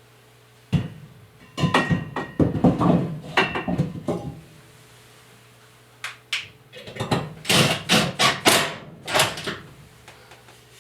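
Knocks and clatters of a length of square steel tubing being held up and screwed to the side of a wooden floor joist, in two bursts a few seconds apart.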